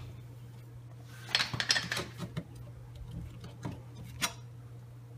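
Light metallic clicks and knocks from a rusty rear brake drum on a 2000 Plymouth Neon being worked loose by hand on its hub. There is a quick cluster about a second in and two single knocks near the end.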